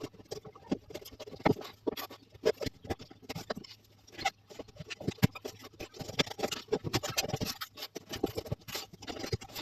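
A tablet's retail box and packaging being handled and opened by hand: irregular taps, scratches and rustles, with a few sharper knocks.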